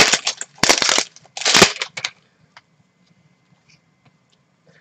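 Foil trading-card pack wrapper being torn open and crinkled, in three crackly rips within the first two seconds, followed by faint clicks of cards being handled.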